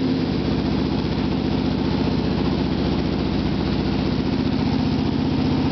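2005 Yamaha Raptor 350's single-cylinder four-stroke engine idling steadily through an aftermarket FMF exhaust.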